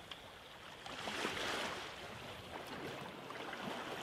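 Water rushing and splashing along the hull of a sailing yacht under way, with wind; a louder wash comes through about a second in.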